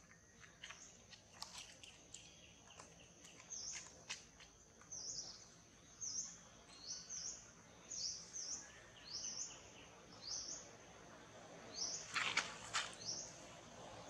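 A small bird chirping over and over, short high hooked notes about once a second, over a steady high-pitched insect drone. A few faint clicks, and a brief louder rustle about twelve seconds in.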